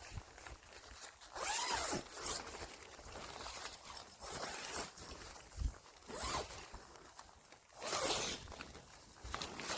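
Tent zipper being pulled open in several separate strokes, the longest about a second in and shorter pulls near six and eight seconds.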